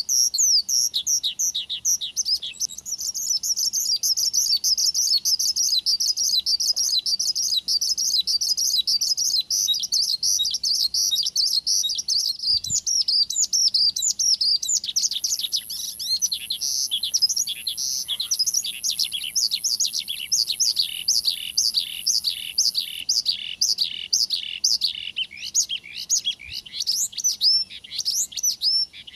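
Male Horsfield's bush lark (branjangan) in full, unbroken song: a fast stream of high chirps, trills and rapidly repeated notes, with an extra very high trill on top through the middle. It is the kind of continuous 'gacor' song used as a lure to set a kept bush lark singing in reply.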